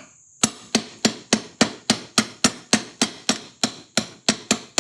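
Bronze hammer rapidly tapping the spindle shaft of an early Victor M phonograph motor to drive it out. One sharp tap comes first, then a steady run of about three or four sharp metallic taps a second.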